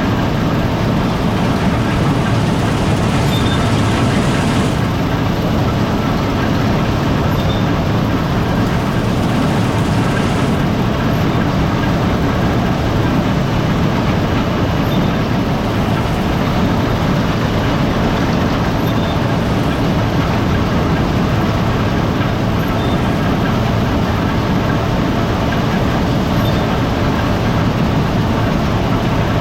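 Gleaner R72 combine harvester running steadily: a constant, loud machine drone with no change in speed or load.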